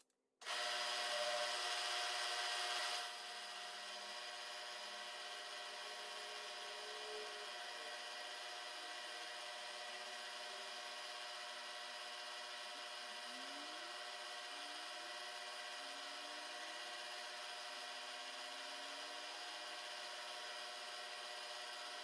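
Mini milling machine running with a small end mill in the spindle: a steady whir with a fine hiss, louder for the first couple of seconds and then holding even.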